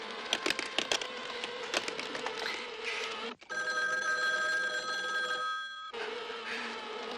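A black desk telephone's bell rings once for about two and a half seconds and stops abruptly. Before and after the ring, a crackling, buzzing noise with a steady hum runs underneath.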